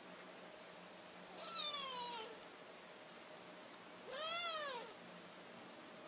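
Domestic cat meowing twice: the first meow, about a second and a half in, falls in pitch; the second, about four seconds in, rises and then falls.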